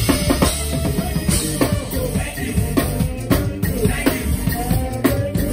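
An acoustic drum kit played live in a busy groove, with frequent sharp drum and cymbal hits, along with the rest of the band's music.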